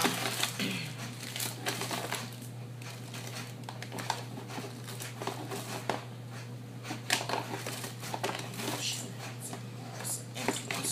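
Rustling and crinkling with scattered light clicks and knocks as things are rummaged through and handled, over a steady low hum.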